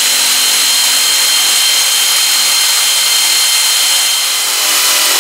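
Pneumatic air ratchet running continuously, tightening a bolt on a battery hold-down bracket: a steady high whine over loud air hiss.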